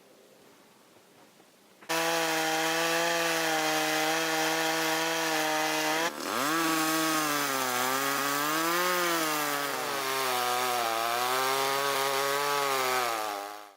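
Two-stroke chainsaw starts abruptly at high revs, steady at first. From about six seconds in its pitch drops and wavers up and down as it bogs under load, cutting into a maple trunk for a hinge cut, before it stops suddenly near the end.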